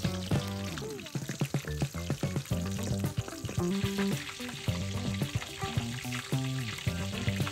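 Hot oil sizzling around chicken thighs deep-frying in a wok, under background music. In the second half a steel cleaver chops chilies on a wooden block, with short knocks.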